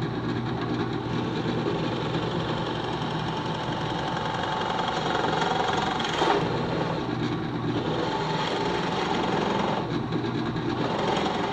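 Drill press running steadily while its 1 3/8-inch Forstner bit bores a shallow flat-bottomed recess, about a quarter inch deep, into a pine blank.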